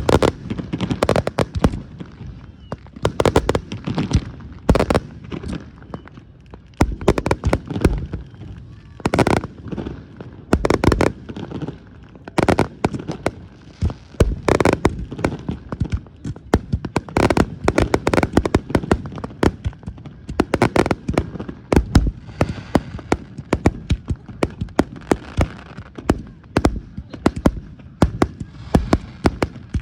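Fireworks going off in a dense barrage: sharp bangs and booms, several a second at uneven intervals, with no let-up.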